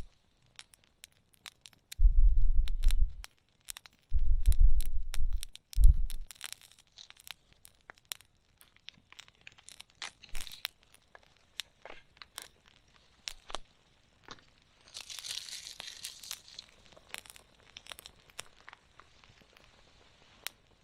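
Wood campfire crackling with sharp, irregular pops and snaps. Three low rumbles come in the first six seconds, and a brief hiss about fifteen seconds in.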